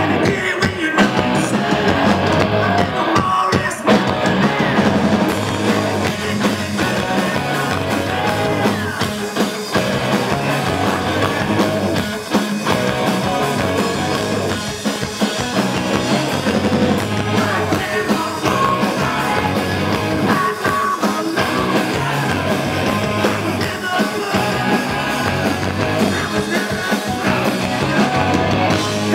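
Rock band playing live and loud: electric guitars and drums, with singing.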